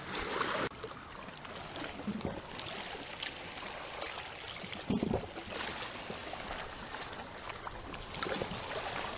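Calm sea water lapping and washing against the rocks at the water's edge, with a soft thump about five seconds in.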